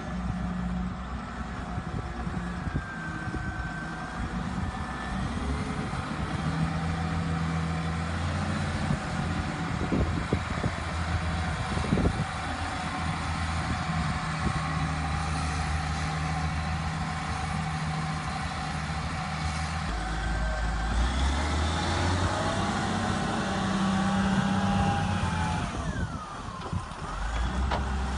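Cat 950F II wheel loader's diesel engine running as the machine is driven, the engine note swelling and easing as it is worked, louder about two-thirds of the way through and again near the end.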